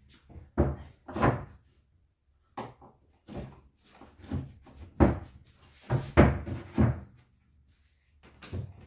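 About nine irregular knocks and thuds, as wooden panels and parts are handled and set down during cabinet work.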